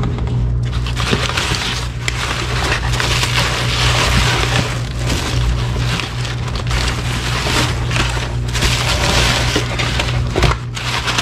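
Kraft packing paper, bubble wrap and a plastic bag rustling and crinkling as parts are handled and lifted out of a cardboard box, over a steady low hum.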